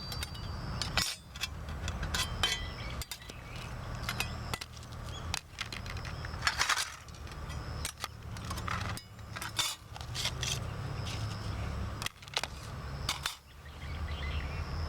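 Sheet-metal parts of a take-apart wood stove clinking and clicking together as they are handled, a dozen or so sharp knocks at uneven intervals over a steady low rumble.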